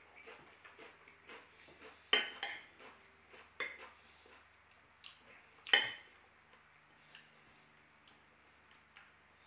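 Metal spoon clinking and scraping against a salad bowl as salad is scooped out. Three sharp clinks stand out, about two, three and a half and nearly six seconds in, the first and last loudest, with small quiet ticks between.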